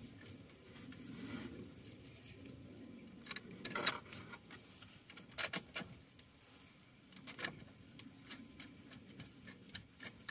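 Faint, scattered metallic clicks and taps of steel bolts being handled and started by hand into the alternator mounts, with a few louder clinks in between.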